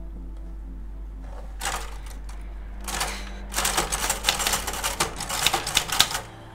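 Manual typewriter being typed on: quick runs of key clacks starting a couple of seconds in, densest and loudest in the second half.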